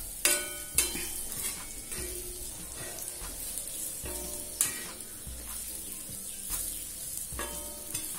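Masala-coated chicken pieces sizzling on an iron tawa while a metal spatula stirs and scrapes them, with several sharp clinks of the spatula against the pan.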